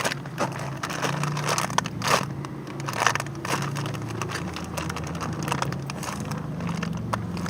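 Plastic bags crinkling and rustling in short, irregular bursts as small squishy toys are handled in their wrappers, over a faint low hum.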